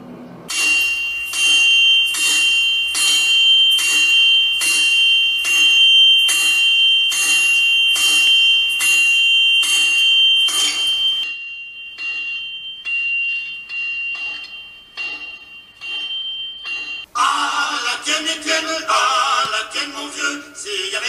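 Hammer blows on an anvil, struck steadily about one and a half times a second over a lasting metallic ring: a blacksmith or farrier sound effect from the model layout's sound system. The blows grow fainter after about 11 s, and near the end singing voices take over.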